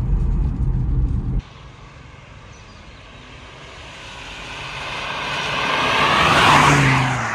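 Volvo 850 T-5R wagon with a turbocharged five-cylinder engine: a low engine and road drone inside the cabin at speed, which cuts off suddenly about a second in. Then the car approaches and drives past close by, its tyres hissing on the wet road. It grows steadily louder to a peak about six seconds in, and the engine note drops slightly as it goes by.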